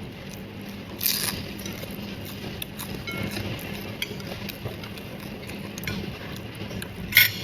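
Eating at a table: small clicks and clinks of utensils and soft chewing over a steady low hum. Two short, louder crackly noises come about a second in and near the end.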